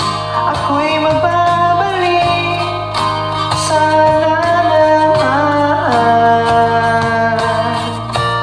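A woman singing karaoke over a pop-rock backing track of guitar, bass and a steady beat.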